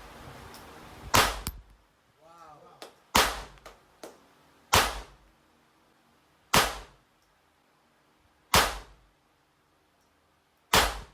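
Handgun fired six times in slow, even succession, about one shot every two seconds, each a sharp crack with a short echo.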